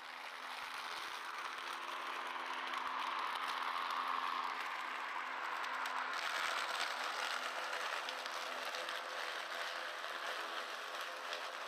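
Ryobi 40-volt cordless electric lawn mower running under load with its brushless motor, its blade cutting damp grass and leaves and blowing them into the collection bag. It makes a steady whirring rush with a faint low hum beneath, growing louder over the first couple of seconds.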